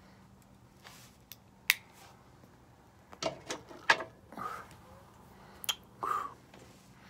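Lip smacks and mouth pops from puffing on a cigar: scattered sharp clicks, several bunched together about three to four seconds in, with two short breathy puffs.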